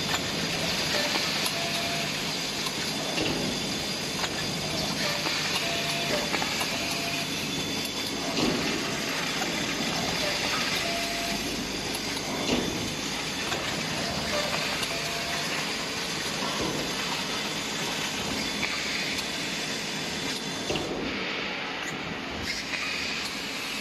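Steady, even noise of running factory machinery on a stud welding production line, with a few short, faint tones.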